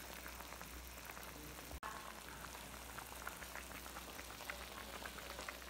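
Soda and soy sauce bubbling quietly around whole mud crabs in a pan, a soft steady crackle of many small pops, broken by a momentary dropout about two seconds in.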